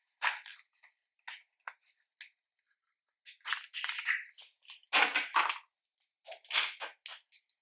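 Store-bought slime being squished and mixed by hand: a run of irregular wet squishes, crackles and small pops with short silent gaps between them, the loudest cluster about five seconds in.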